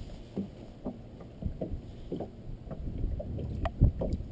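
Small waves lapping and slapping against the hull of a flats skiff, with scattered light knocks and one low thump near the end.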